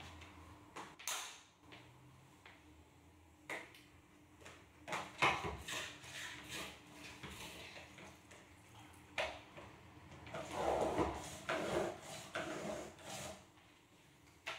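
A flat mop being worked in its plastic squeeze bucket: several knocks and clicks of the handle against the plastic, then a longer scraping, sliding noise about ten seconds in as the mop pad is drawn through the bucket's wringer slot.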